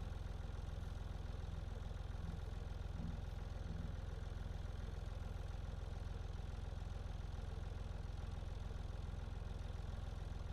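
Farm tractor engine running steadily, a low, even drone.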